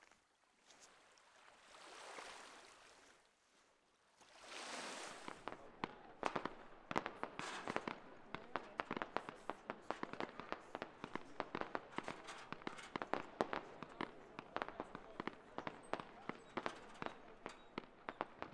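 Rapid, irregular crackling and popping, several sharp cracks a second, setting in about five seconds in after a stretch of soft rushing noise.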